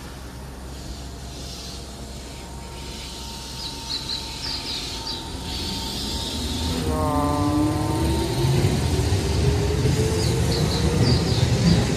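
Keihan 8000-series electric train pulling away from the platform: from about six seconds in, a steadily rising motor whine builds and the level grows as the cars start to pass. A short steady tone comes about seven seconds in. Repeated high bird-like chirps, like a station's recorded chirping guidance sound, run behind it.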